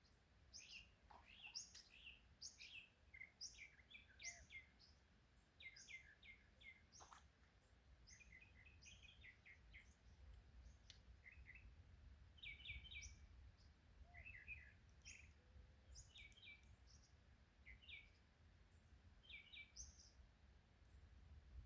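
Faint bird chirping: many short, high, rapid notes repeating throughout, over a low background rumble.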